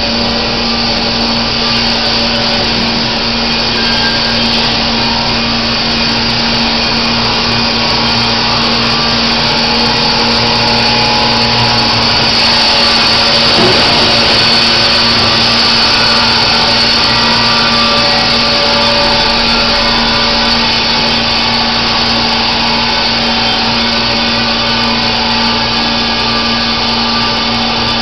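Band sawmill running steadily, a constant loud machine noise with a steady hum underneath.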